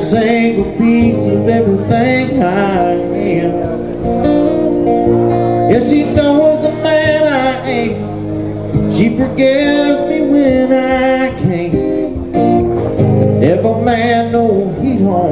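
A man singing a song while strumming his acoustic guitar, his vocal lines coming in phrases over steady chords.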